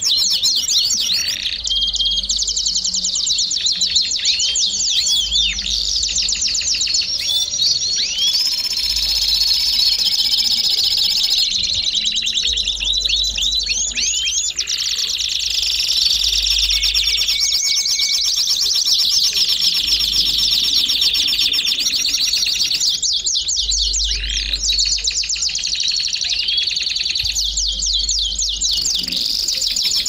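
Domestic canary (canário belga) singing continuously: fast trills and rolls of high, rapidly repeated notes, one phrase running straight into the next.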